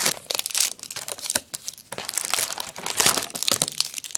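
Plastic wrapper of a hockey card pack crinkling in irregular bursts as the cards are pulled out of it.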